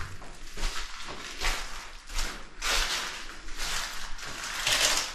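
Footsteps on a gritty, debris-strewn floor, a short crunch at each step about once a second.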